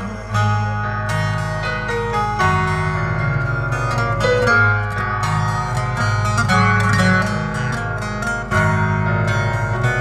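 Instrumental break of Turkish folk music: a bağlama (saz) plays a quick plucked melody over keyboard accompaniment with sustained bass notes.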